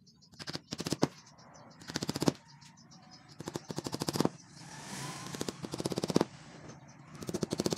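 A hammer rapidly tapping small nails through a thin white back panel into the edges of a cabinet carcass, in about five quick runs of strikes.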